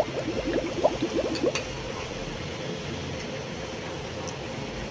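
Pot of water at a rolling boil as a whole chicken goes in: gurgling bubbles for the first second and a half, with a light tap about a second and a half in, then a steady boiling hiss.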